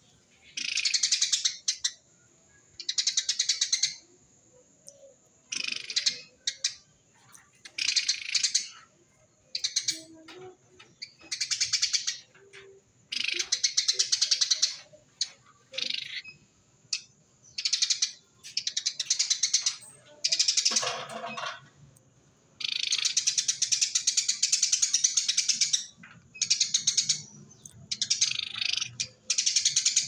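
Eurasian tree sparrow giving its rapid, dense 'tembakan rapet' chatter: bursts of fast, high chirps a second or two long, repeating every couple of seconds, with one longer run of about three seconds near the end.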